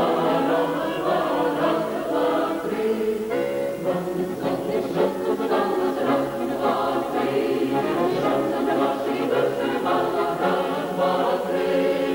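A Ukrainian folk choir of women's and men's voices singing together in held chords.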